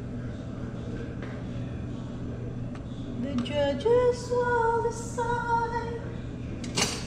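A woman's voice singing a few long, held notes, starting about halfway in, over a steady low hum, with a brief knock near the end.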